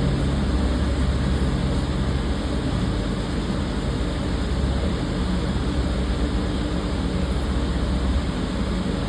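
A machine running with a steady rumble and low hum; the deepest part of the hum drops away about eight seconds in.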